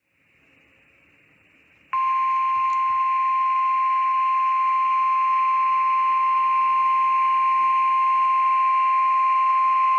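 NOAA Weather Radio warning alarm tone: a single steady 1050 Hz tone comes on about two seconds in, after a moment of faint radio hiss, and holds over the hiss. It marks the start of a newly issued severe thunderstorm warning broadcast.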